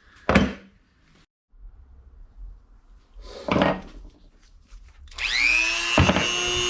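Two brief knocks, then a power tool spinning up: a rising whine that levels off into a steady high whine.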